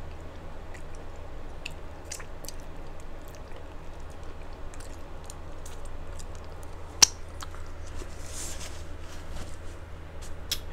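Close-miked chewing of a hard-shell taco on a clip-on microphone: scattered small mouth clicks and wet smacks, with one sharp click about seven seconds in and a short breathy hiss soon after, over a steady low hum.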